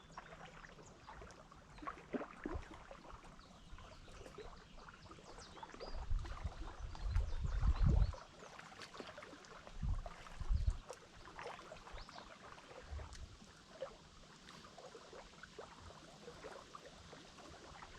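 Quiet lakeside ambience: faint water lapping, with low rumbles of wind on the microphone, the strongest about six to eight seconds in and again around ten seconds.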